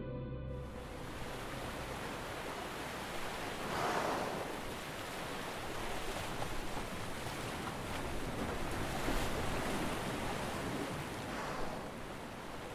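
Sea water washing and sloshing: a steady rushing noise that swells about four seconds in and again near the end.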